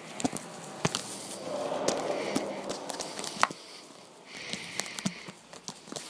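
Sectional garage door rising, its rollers rattling and clicking along the tracks in a run of sharp clicks and knocks.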